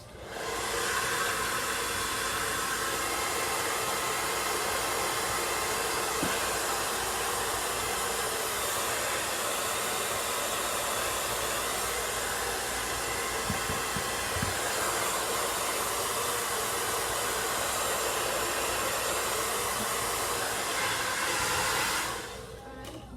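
Handheld blow dryer running at a steady blowing rush, switched on at the start and cut off about a second before the end.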